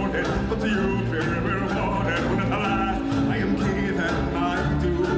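Music with singing over a steady instrumental backing and sustained bass notes.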